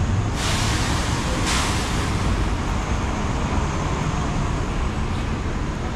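City street traffic: a steady rumble of passing vehicles, with a loud hiss that starts sharply about half a second in and dies away after about two seconds.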